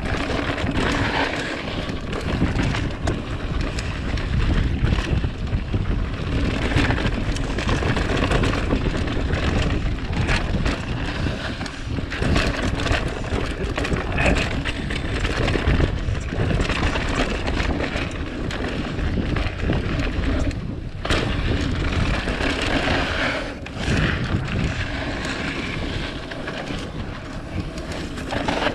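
Mountain bike riding down a dirt trail: wind buffeting the microphone over the rumble of the tyres, with frequent knocks and rattles from the bike over bumps.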